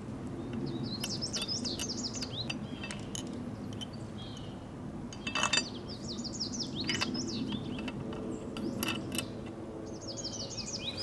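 Songbirds singing in several quick chirping phrases, with a few sharp clicks and light metallic rattles over a steady low hum.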